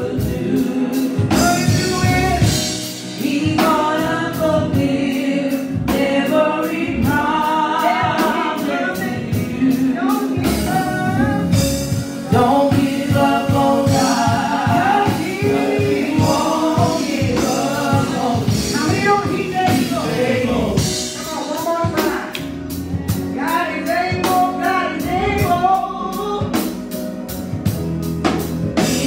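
A gospel praise team of men and women singing together into handheld microphones, over an accompaniment with a steady beat.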